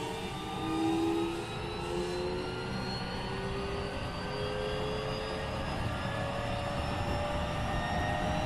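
Keikyu 1500 series electric train with refurbished Mitsubishi IGBT-VVVF traction equipment, heard from inside the car while accelerating: several inverter and traction-motor whine tones rise slowly and steadily in pitch over the rumble of wheels on track.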